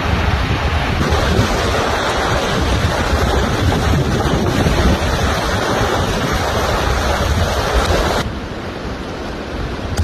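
Mountain river rapids rushing over rocks, a loud steady roar of whitewater. About eight seconds in it drops to a quieter, steady rush.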